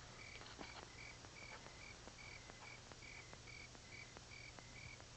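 Crickets chirping in a steady, even rhythm, about two chirps a second, over a faint low hum, with a few faint clicks.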